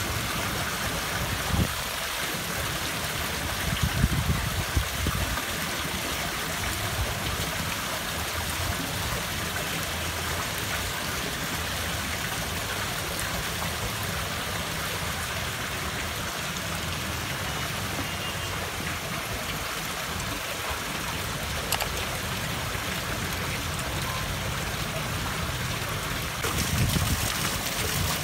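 Water steadily running and trickling into a garden fish pond, with a few short low bumps on the microphone.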